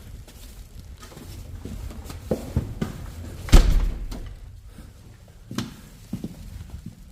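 A series of knocks and bumps, with one loud, deep thud about three and a half seconds in.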